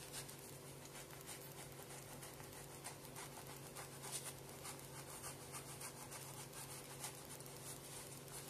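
A knife sawing through the crust of a small loaf of bread to split it open: faint, irregular scratchy strokes over a steady low hum.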